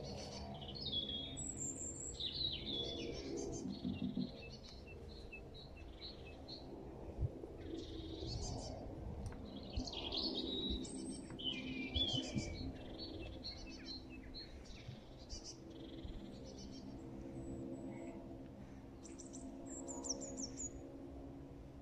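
Small birds chirping and twittering over and over, over a low steady drone from the jet engines of a Boeing 747 climbing away in the distance.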